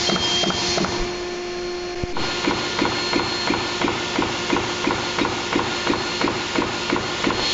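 Rubber cutting machines working in fast, regular strokes. First a die press clatters over a steady hum. After an abrupt change about two seconds in, a perforating machine punches holes in a rubber sheet at about three strokes a second.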